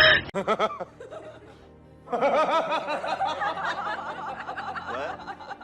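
Music, with a rapid run of laughter-like sounds starting about two seconds in.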